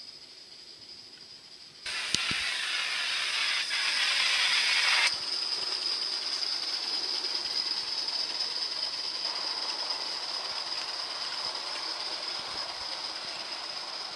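Gauge 1 live steam model of a Pennsylvania E6s locomotive running with its train. A loud steam hiss sets in suddenly about two seconds in, eases about five seconds in, and then goes on as a steady hiss and running noise that slowly fades.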